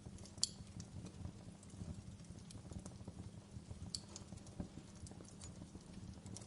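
Campfire burning: a steady low rumble with scattered small crackles and pops of burning wood, and two sharper pops, one about half a second in and one near four seconds.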